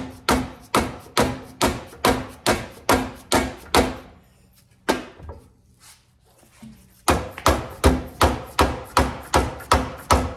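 Steady hammer taps, about two and a half a second, knocking on a drill press's quill, which is seized with rust and packed junk, to drive it loose. A faint metallic ring sounds under the taps. The tapping pauses for about three seconds midway, with one lone tap, then starts again.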